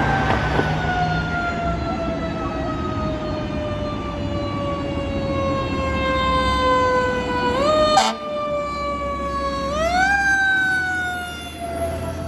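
Fire truck siren winding slowly down in pitch for several seconds, then pushed back up twice in short rises, over the low rumble of the truck's engine. A sharp click sounds about eight seconds in.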